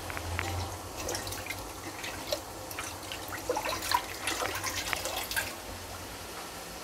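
Watery chicken gravy in a large steel pot: a ladle stirs in fresh mint, coriander and curry leaves, with soft wet sloshing and scattered small pops and clicks.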